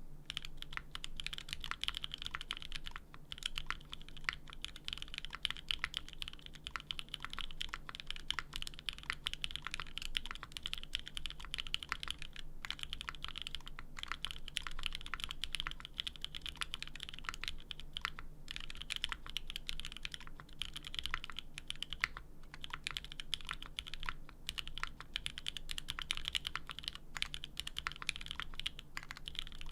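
Fast, continuous typing on a 60% mechanical keyboard: a JJW Moment half-gasket-mount case with a polypropylene plate, Popu (OpBlack recolour) linear switches with 57 g springs, and GMK Shoko doubleshot ABS keycaps. A dense stream of keystrokes, broken by a few short pauses.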